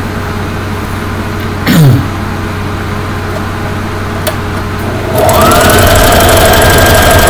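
Brother LX3850 electric sewing machine stitching through fabric: a brief whir falling in pitch about two seconds in, then about five seconds in the motor spins up and runs at a steady speed. This is a test stitch after replacing the rotary hook shuttle, and the machine is sewing normally again.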